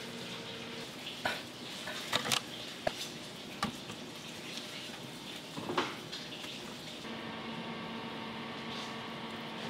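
Plastic food tubs and trays clicking and knocking as they are handled, with a handful of sharp taps in the first six seconds. From about seven seconds in, a steady low hum of kitchen equipment takes over.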